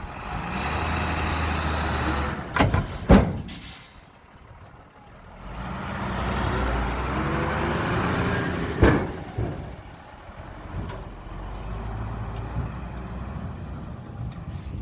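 Heavy diesel earthmoving machinery working: engines rise and ease off in two long surges with a lull between, then run more quietly. Sharp knocks come about two and a half, three and nine seconds in, the one at three seconds the loudest.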